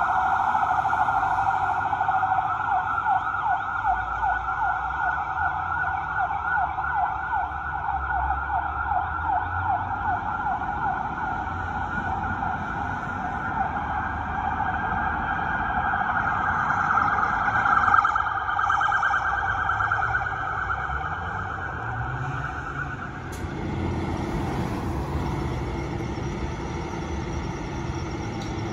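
Fire engine siren sounding a fast yelp that rapidly rises and falls, over the low rumble of the truck's engine, signalling an emergency response. Near the end the siren cuts off suddenly, leaving only a heavy truck engine running.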